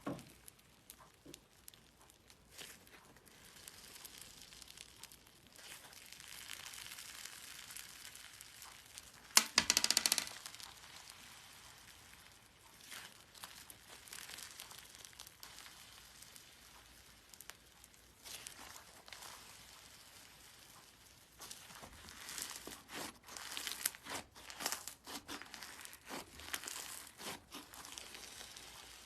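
Hands squeezing and stretching slime, giving soft crackling and clicking. There is a louder burst about ten seconds in and a busier run of crackles near the end.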